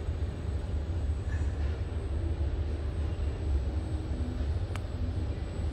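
Steady low rumble of background noise, with a single faint click near the end.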